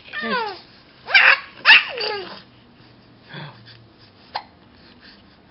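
Baby making short high-pitched squeals, three in the first two seconds, each falling in pitch, then a sharp click about three quarters of the way through.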